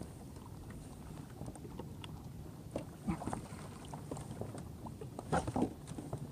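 Wind and water around a kayak, with a few short splashes and knocks about three seconds in and again near the end as a large lingcod is grabbed at the surface and hauled aboard.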